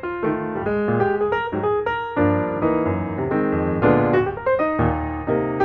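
Background piano music, a steady run of notes and chords.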